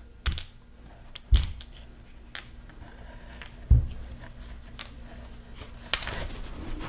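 Steel sockets from a Snap-on socket set clinking against each other and their tray as they are handled: about six sharp metallic clinks, each with a brief high ring, the loudest nearly four seconds in. Near the end a steady hiss sets in.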